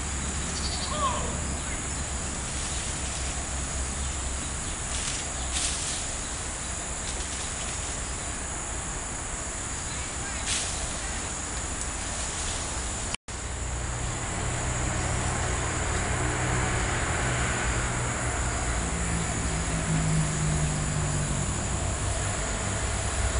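Steady high-pitched insect drone over a low rumble, with a few faint bird chirps near the start. After a brief dropout about halfway, a low steady hum joins in the background.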